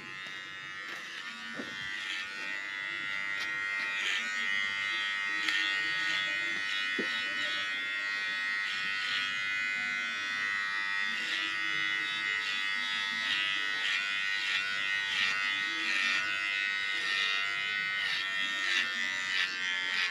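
Cordless electric hair clipper buzzing steadily as it cuts a child's curly hair, growing louder over the first few seconds and then holding steady.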